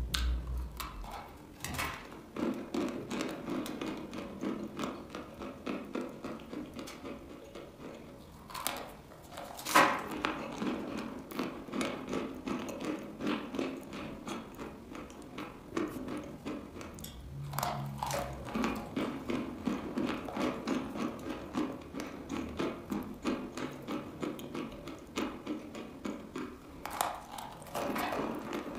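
Dry chalk being bitten and chewed: a few loud sharp snaps where pieces are bitten off, with a dense gritty crackle of crunching between them.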